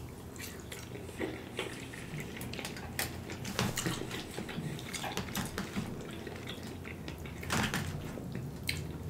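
Close-miked chewing and mouth sounds of a man eating a rice dish. A metal fork clicks and scrapes irregularly in a plastic takeout container.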